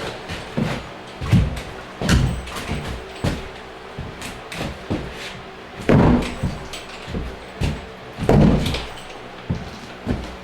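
Irregular thumps and knocks of a subfloor sheet being worked down into place, with the loudest heavy thuds about six seconds in and again near eight and a half seconds.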